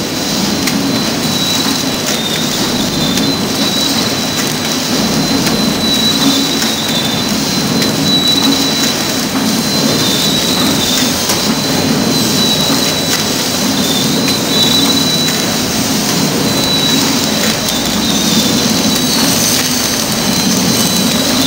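Horizontal flow-wrap packing machine running steadily as it feeds printed film and wraps foam pads, a constant mechanical drone with a thin high whine held throughout.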